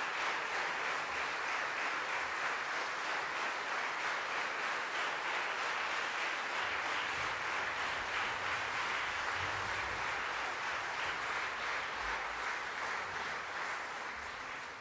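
Concert audience applauding steadily, many hands clapping together, starting to fade near the end.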